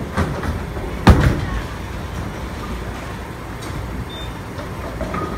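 Low, steady rumble of a bowling ball rolling down a wooden lane in a bowling alley. One loud knock comes about a second in.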